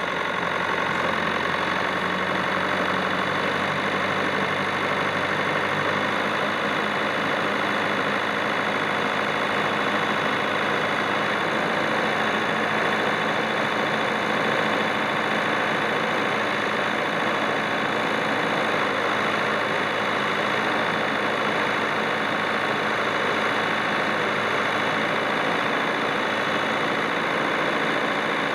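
JCB 214B loader backhoe's diesel engine idling steadily.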